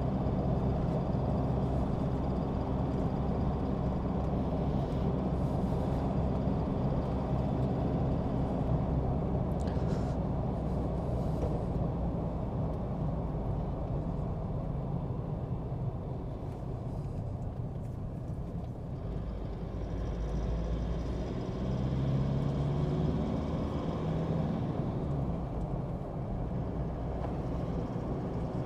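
A vehicle being driven at a steady pace, heard from inside the cab: a constant low engine and road hum.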